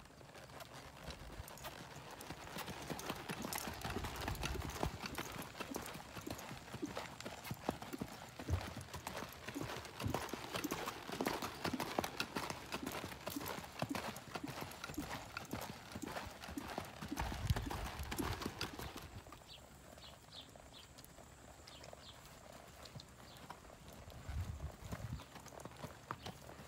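Hoofbeats of a ridden quarter pony on dirt footing, quick and dense through most of the stretch at a faster gait, then quieter and sparser for the last third as the pony walks.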